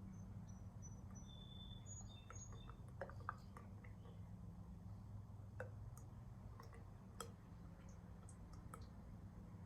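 Motor oil pouring from a plastic jug into an engine's fill neck: a faint, steady trickle with scattered small glugs and pops as air bubbles back into the jug. A few faint bird chirps early on, over a low steady hum.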